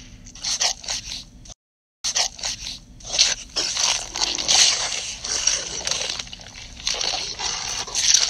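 Chewing and crunching eating sound effects, a rapid run of short scraping bursts. About a second and a half in they break off for half a second of total silence, then carry on.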